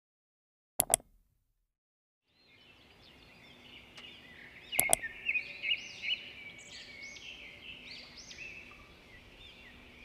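Birds chirping and singing in many short overlapping calls, fading in about two seconds in and growing louder. Sharp double clicks come just before the birds start and again about five seconds in.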